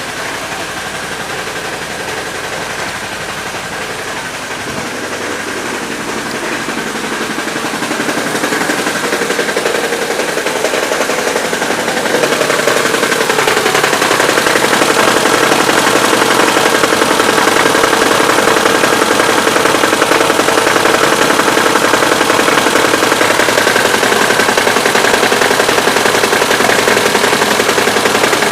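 Daewoo Sens 1.3 engine running with a rapid, even knocking under the hood, of a cause still unknown. The knocking grows louder through the first half, then holds steady.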